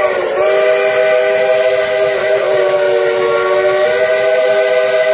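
Chime steam whistle of engine 70, a 2-8-2 steam locomotive, sounding one long blast: several notes held together as a steady chord, with a brief wavering in pitch as it opens.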